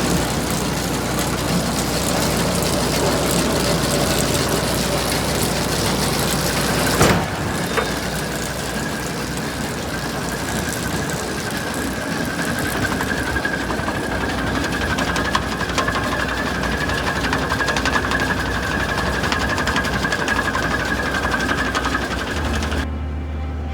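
Tractor-driven round baler running: a steady mechanical running noise of engine and turning machinery. About seven seconds in there is a sharp knock and the sound changes abruptly, after which a faint steady whine runs through it.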